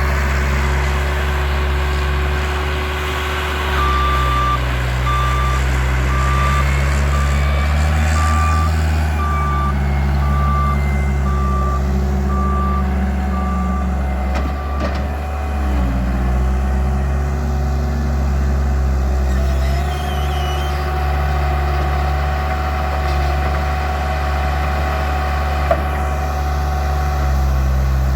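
A Bobcat's diesel engine working, its revs shifting up and down. A backup alarm beeps about once a second for roughly ten seconds, starting a few seconds in.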